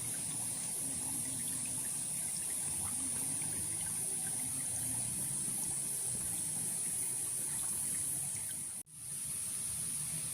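Forest stream trickling and babbling steadily, under a constant high-pitched drone of insects. The whole sound cuts out for an instant near the end and comes straight back.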